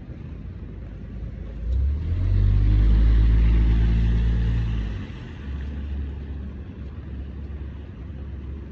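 A small kei car drives past close by on wet asphalt: its engine rumbles and its tyres hiss on the wet road. The sound swells about two seconds in, peaks, and falls away about five seconds in, leaving a lower rumble.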